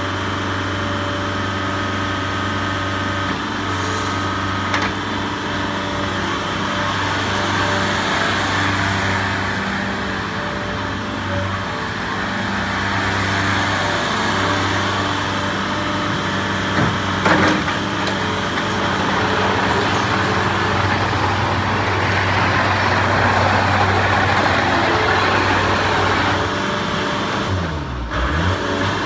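IHI 45J mini excavator's diesel engine running steadily while the boom and swing are worked. The hydraulic noise swells twice over the engine note, and there is a single sharp knock a little past the middle.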